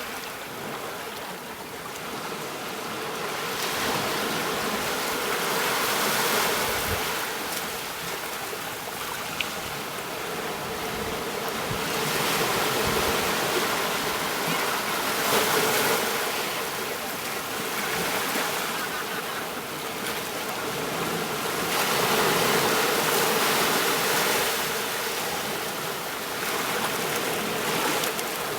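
Ocean waves breaking on a beach, the surf swelling and falling back about every nine to ten seconds.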